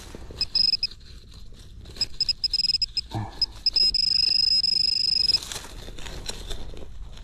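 High electronic beeping from metal-detecting gear over a buried metal target: short broken beeps, then a steady tone for about a second and a half near the end. A soft thud comes about three seconds in, in the middle of the digging.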